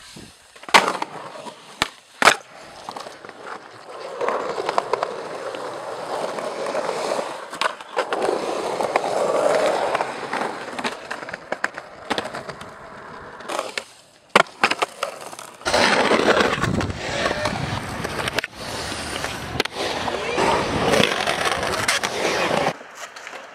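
Skateboard wheels rolling over concrete, with two sharp, loud clacks of the board about one and two seconds in.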